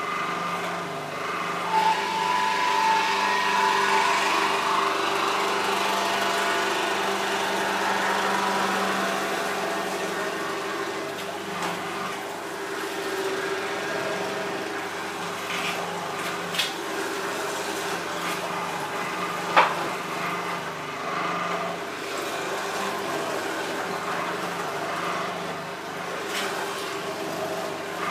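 Electric juicer's motor running steadily while pear and rhubarb pieces are pushed through the feed chute. A few sharp clicks sound over it, the loudest about twenty seconds in.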